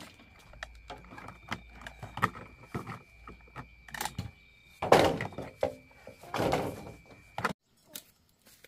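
Scattered wooden knocks and thuds of bamboo being handled and cut, with two louder rustling crashes about five and six and a half seconds in. The sound cuts off abruptly shortly before the end.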